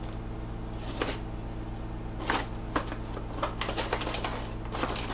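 Cardboard box being opened and handled by hand: a scatter of rustles, scrapes and light taps, growing busier in the second half, over a steady low hum.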